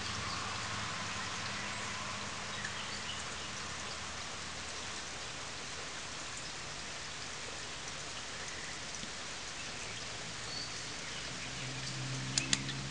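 Steady rain falling on leaves and the garden, an even hiss. Two sharp clicks near the end.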